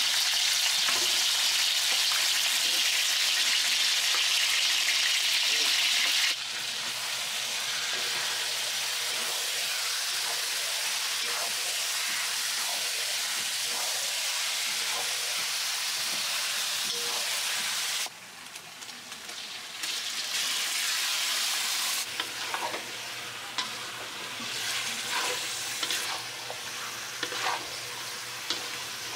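Marinated chicken pieces sizzling in hot oil with garlic and onions in a large metal wok, a steady frying hiss that is loudest for the first six seconds and then drops. In the last part, a spatula stirs the chicken, with short scraping strokes against the pan.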